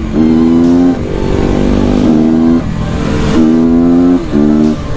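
A 300cc motorcycle engine running under throttle at a fairly steady note. It is cut briefly about four times as the throttle is eased off and opened again.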